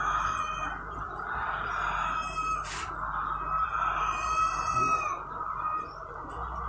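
Chickens calling, with a rooster crowing for about a second around four seconds in, over a steady high background hum. There is one sharp click a little before the crow.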